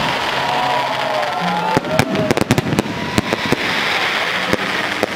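Fireworks display: aerial shells bursting in a rapid volley of bangs and crackling, heaviest about two to three seconds in, over a continuous hiss, with a few whistling tones that glide in pitch.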